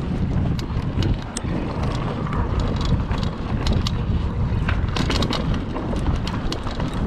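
Mountain bike rolling fast over a dirt trail, with wind buffeting the microphone as a steady low rumble and frequent sharp clicks and rattles from the bike over the rough ground.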